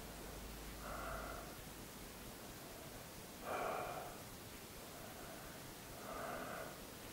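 A man's slow, audible breathing, three breaths about two and a half seconds apart, the middle one the loudest, while he lies in a hypnotic trance.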